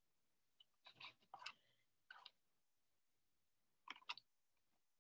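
Plastic tablespoon stirring sticky glitter-glue slime in a plastic tub: faint clicks and scrapes of the spoon against the tub and the goo, in a few short clusters.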